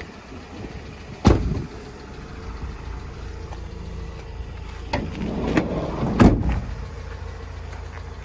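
Ford Transit Custom van's sliding side door being worked: a sharp knock about a second in, then the door rolling along its track and slamming shut about six seconds in, over a low steady rumble.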